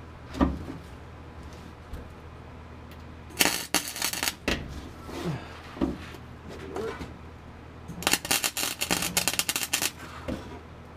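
A wire-feed welder crackling in two short bursts, about a second and then about two seconds long, as tack welds go onto a sheet-metal patch panel in a truck's floor. A single knock comes about half a second in.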